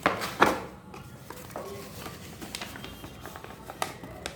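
Handling of a phone's retail box and packaging: two sharp clicks right at the start, then scattered light ticks and taps.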